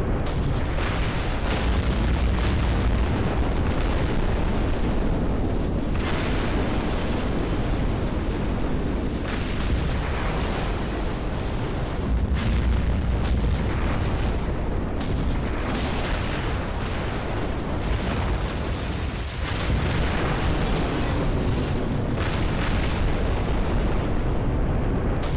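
Loud, continuous rumbling noise, heaviest in the deep low end, with a dense crackle of small knocks running through it.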